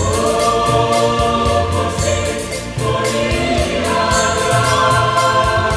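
Mixed choir singing sustained chords over instrumental accompaniment with a steady drum beat; the voices come in right at the start after an instrumental passage.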